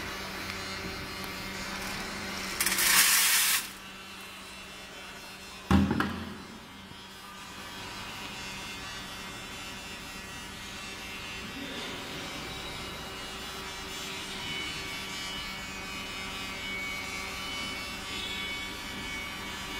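Grain color sorter running with a steady hum as mung beans are fed through it for re-sorting. Near three seconds in there is a loud rushing burst lasting about a second, and about six seconds in a sharp knock with a short ringing tail.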